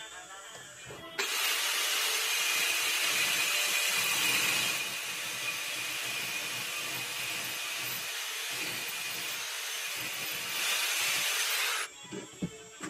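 Small handheld power tool, a rotary tool, running and grinding against a steel bolt. It starts about a second in, eases slightly through the middle and cuts off suddenly near the end.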